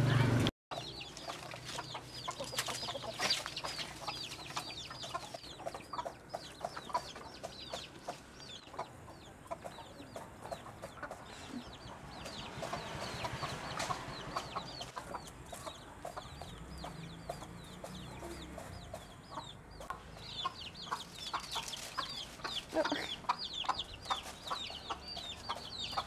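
Baby chicks peeping continuously in rapid, high, falling cheeps, with hens clucking under them.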